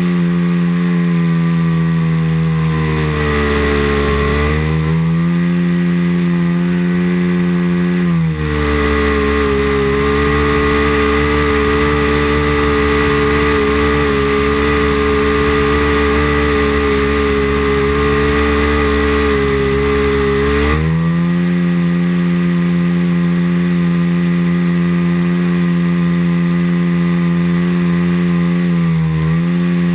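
A .90 four-stroke glow (nitro) model airplane engine running in flight, heard close up from a camera mounted on the plane. The engine note dips briefly about four seconds in. It shifts to a different steady pitch about eight seconds in and shifts back about 21 seconds in.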